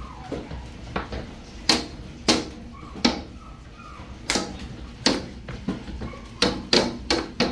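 Large hailstones striking the window and house in irregular sharp knocks, roughly one a second, coming faster near the end.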